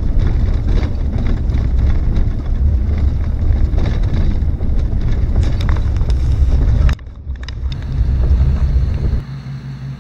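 A vehicle driving along a snowy road: loud low rumble with wind noise on the microphone, briefly dropping about two-thirds of the way in. Near the end it settles to a quieter, steady engine idle.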